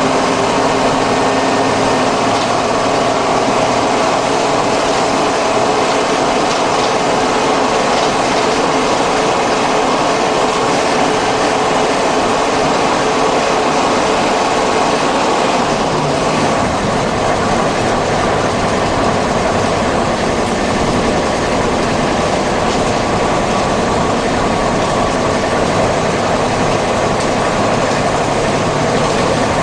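Mercedes-Benz OM-366 six-cylinder diesel in an OF-series bus, running steadily. About halfway through, its higher engine tones fade and a deeper rumble takes over.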